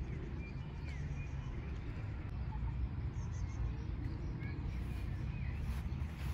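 Outdoor ambience: birds chirping here and there over a steady low rumble.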